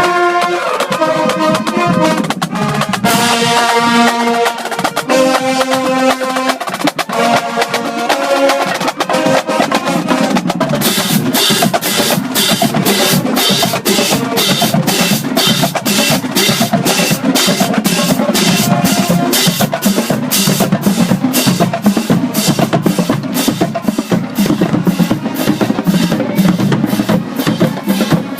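Marching band: the horns play a phrase of held notes for the first several seconds. About ten seconds in, the drum line takes over with an even snare and bass drum cadence.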